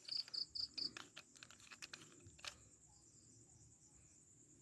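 Crickets and other night insects keeping up a steady high-pitched trill, with four quick high chirps in the first second. A scatter of sharp clicks comes in the first couple of seconds, then only the insects remain.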